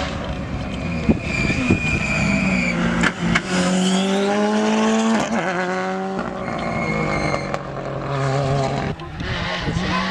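Ford Fiesta rally car's engine at full throttle, passing at speed. The revs climb through a gear, drop sharply at a shift about five seconds in, and carry on as the car pulls away.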